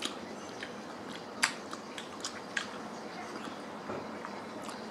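Mussel and clam shells clicking against each other and a stainless steel bowl as they are picked out by hand, with soft chewing. About half a dozen sharp clicks, the loudest about a second and a half in.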